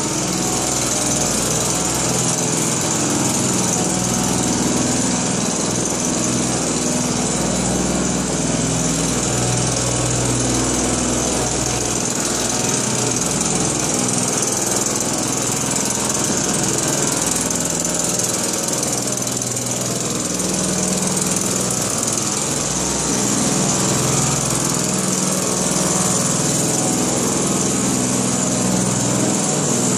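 Backpack motorized duster running steadily, its small engine humming under a loud hiss of air as it blows disinfectant powder through its hose.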